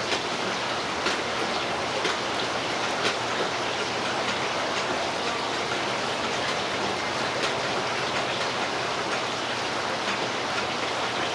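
A steady, even hiss throughout, with faint scattered ticks from a spice shaker being shaken over fish fillets.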